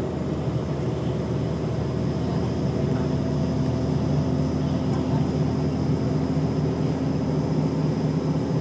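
Bus engine and road noise heard inside the coach cabin at highway speed: a steady low drone, with a humming tone coming in about two seconds in.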